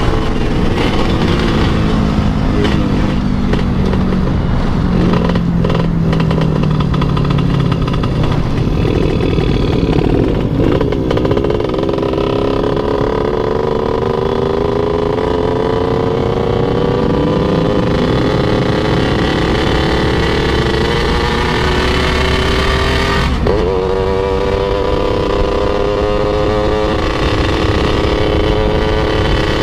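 Motorcycle engine under way with wind noise on the microphone. Its pitch falls over the first several seconds as the bike slows, then climbs steadily through a long pull, dips briefly about two-thirds of the way through as a gear changes, and climbs again. The rider complains that the oil has run out.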